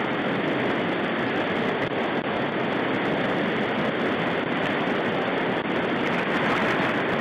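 River rapids rushing steadily over rocks, a constant even noise of fast water.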